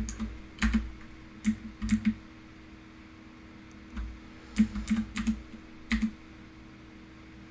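Computer keyboard keys pressed one at a time, about a dozen separate clicks, some in quick runs, with a pause of about two seconds in the middle. A faint steady hum lies underneath.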